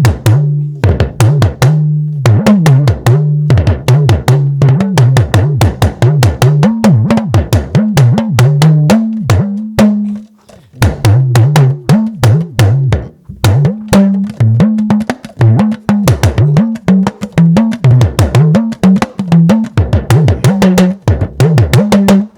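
Talking drum played with a stick in fast strokes, its pitch bending up and down as the tension cords are squeezed and released. The drumming stops for a moment about halfway through, then starts again.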